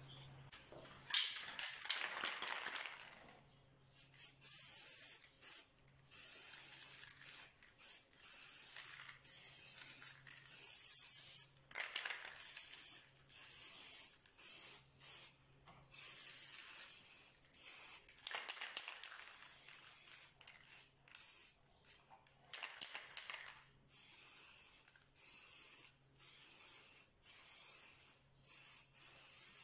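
Aerosol spray can hissing in many short bursts, with a few longer, louder sprays among them.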